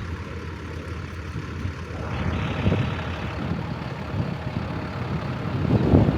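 Road traffic on a busy street: a steady low rumble of passing vehicles that grows louder and fuller through the second half.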